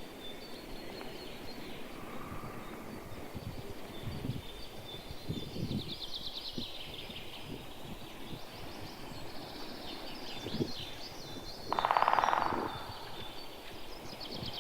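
Wild birds calling and chirping in woodland, with high repeated notes and short trills. About twelve seconds in, a louder buzzing, rasping sound lasts about a second.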